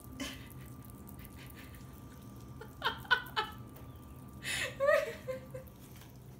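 Young kittens mewing: three short mews close together about three seconds in, then a longer, louder mew about a second later that falls in pitch.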